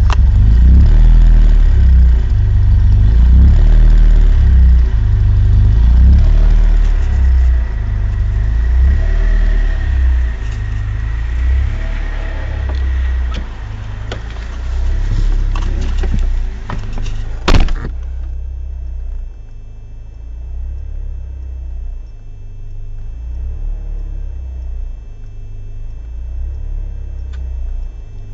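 BMW 318is E36's M42B18 1.8-litre four-cylinder engine idling roughly, with an uneven, lumpy low pulsing: a rough idle whose cause the owner has not found. About two-thirds of the way in a single sharp knock is heard, and the engine sound is quieter after it.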